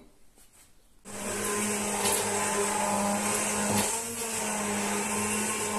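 Electric stick blender running in a pot of cooked prunes, apples and onion in vinegar, blitzing it into a smooth brown sauce. It starts about a second in, runs steadily with a brief dip in pitch about two-thirds of the way through, and cuts off suddenly.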